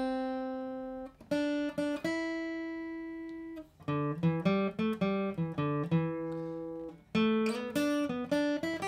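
Acoustic guitar played one note at a time as a melodic line: a held note, a couple of slower plucked notes, then a quicker run of picked notes. A brief pause comes about seven seconds in before a few more notes.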